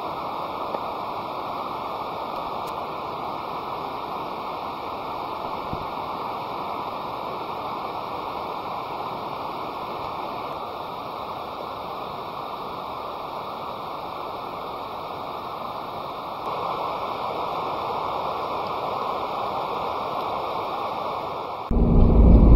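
Steady rushing noise, like running water or wind, a little louder from about sixteen seconds in. Near the end it gives way suddenly to a loud low rumble.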